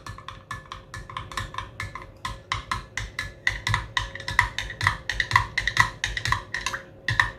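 A spoon clinking rapidly against the sides of a glass cup while stirring honey into onion juice, several clinks a second, each with a light ring.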